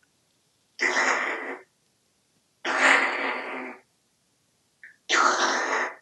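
African grey parrot making three raspy, breathy vocalisations, each about a second long, with short pauses between them.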